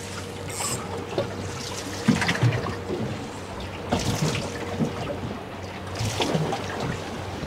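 Sea water lapping against the hull of a small fishing boat, with louder slaps about every two seconds.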